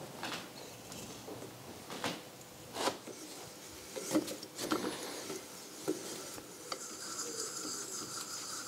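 Hand tap in a T-handle tap wrench being turned to cut thread into a drilled stud hole in a cast manifold flange: a string of short metal clicks and scraping rubs, a second or so apart.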